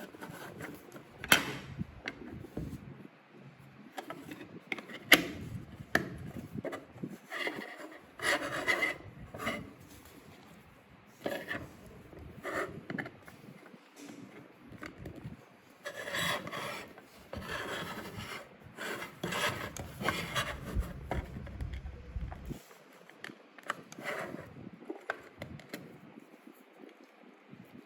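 Packaging being handled and opened: irregular rubbing and scraping, with a few sharp clicks, the loudest about a second and about five seconds in.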